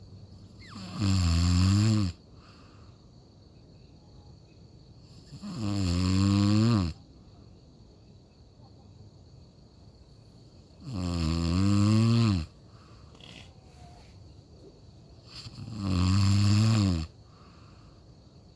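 Loud snoring: four long, low snores, each about a second and a half, recurring about every four and a half to five seconds, with quiet breathing between them. The pitch of each snore dips and then rises again.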